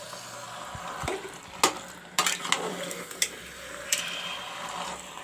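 A spoon stirring mutton pieces through thick masala in a small aluminium pressure cooker, with a low sizzle underneath. The spoon clinks sharply against the pot several times.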